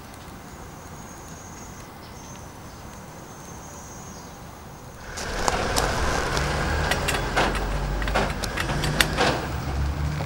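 Wood fuel in a wood gas stove catching fire about five seconds in: a sudden rise to a steady low rush of flame, with sharp crackles of burning wood.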